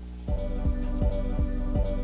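Background music with a steady beat and held notes, kicking in about a quarter second in.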